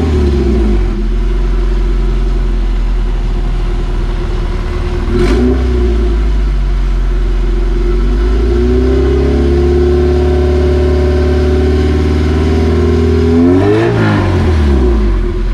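Honda Civic VTi engine revving through newly fitted aftermarket headers with the catalytic converter removed, a sound check for exhaust leaks. It blips the throttle near the start and again about five seconds in, then holds higher revs from about eight seconds and drops back to idle near the end.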